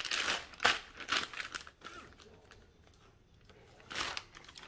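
Plastic zipper-seal storage bag crinkling as it is handled and its seal is pulled open: several sharp rustles in the first two seconds, then a pause and one more near the end.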